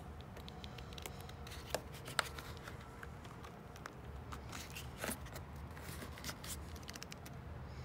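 Old rubber roof weatherstrip being pulled out of its channel on a C6 Corvette: faint rubbing and handling noise with a few small clicks, the sharpest about two seconds in.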